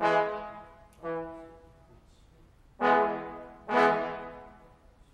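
Brass instruments playing four short, accented notes, each dying away in the room's reverberation over about a second.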